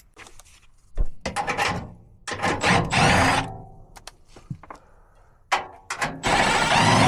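Cordless drill with a 5/16 nut driver spinning out screws from a furnace blower housing in several short runs, with clicks and knocks of sheet metal in between.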